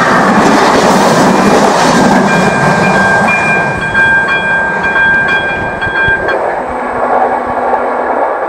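Passenger train passing over a level crossing, wheels clattering on the rails, loud at first and fading as the last coaches pull away. Over it the crossing's electronic warning bell (AŽD ZV-02) sounds a steady high tone, which cuts off about six seconds in as the crossing switches off.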